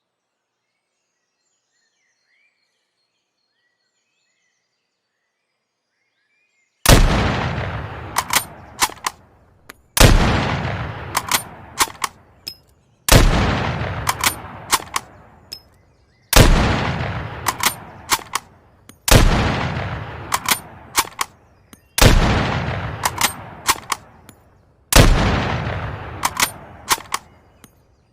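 Mosin-Nagant bolt-action rifle fired seven times, about three seconds apart. Each shot has a long echoing decay and is followed by a quick series of metallic clicks as the bolt is worked. It begins about seven seconds in, after near silence.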